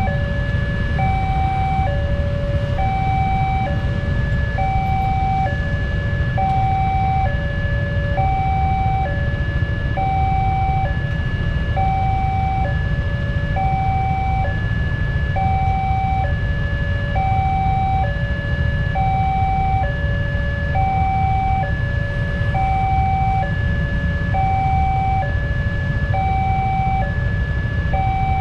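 Railway level crossing warning alarm sounding, an electronic two-tone signal switching between a high and a low note about once a second, telling that a train is due and the barriers are down. A steady low rumble runs underneath.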